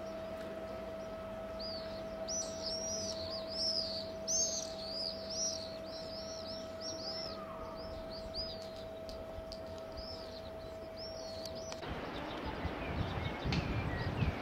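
Small birds chirping, a long run of short calls that rise and fall in pitch, over a faint steady hum. Near the end the birdsong and hum stop abruptly and rougher wind noise takes over.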